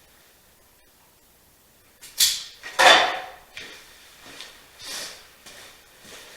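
Wire strippers cutting and pulling the insulation off an automotive wire: two sharp, scraping snaps about two seconds in, followed by softer handling clicks and rustles.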